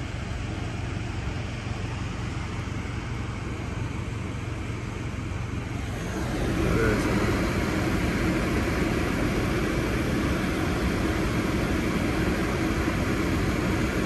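Steady low rumble of a car heard from inside the cabin, with its engine running. The noise gets louder about six seconds in.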